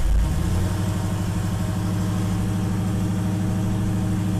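LS-swapped V8 car engine just after starting: a brief loud flare as it catches, then settling into a steady, raised fast idle that has not yet dropped to normal idle.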